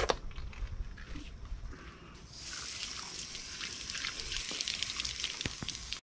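Garden hose spray nozzle spraying water onto a slab of raw alligator gar meat, a steady hiss that starts about two seconds in. Before it, a few knocks and scuffs.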